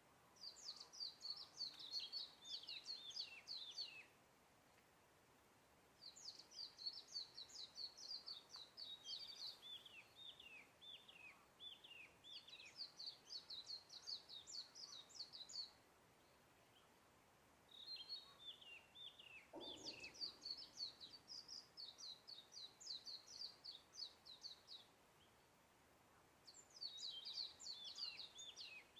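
A songbird singing long phrases of rapid, high twittering notes, each phrase lasting several seconds with short pauses between. A brief low downward sweep sounds about twenty seconds in.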